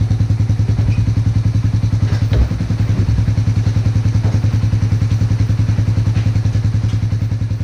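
Small engine of a pull-behind brush-mowing rig running at a steady speed with a fast, even putter. There is a brief knock about two and a half seconds in.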